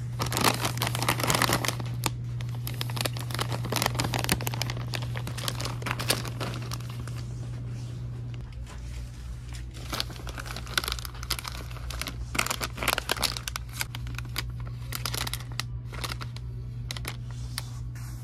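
Plastic packaging crinkling as it is handled, in irregular clusters of crackles, over a steady low hum.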